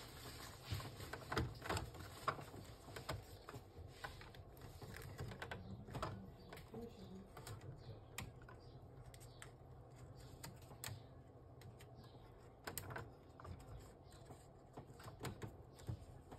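Faint, irregular plastic clicks and taps of ink-tube dampers being handled and pressed onto the print-head carriage of an Epson L3150 ink-tank printer during reassembly.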